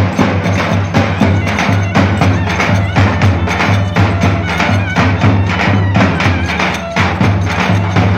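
Live Turkish folk dance music: a davul drum beating a fast, even rhythm of sharp strokes over a heavy low boom, with clicking percussion and a melody line above.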